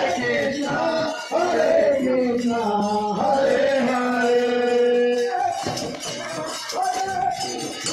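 Devotional kirtan: a chant sung to music, the voice gliding between notes and holding long ones.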